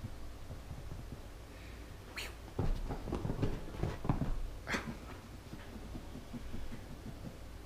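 Baby grey squirrel scrambling and scuffling on a fabric recliner footrest around a person's patting hand, with two short, sharp hissy sounds, one about two seconds in and one near the middle.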